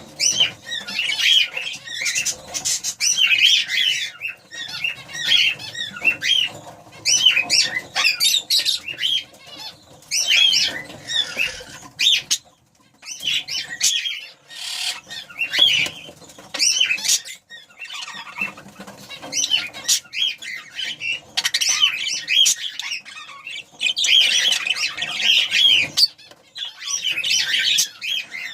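Budgerigars chattering and chirping in bursts with short pauses, with wing flapping mixed in.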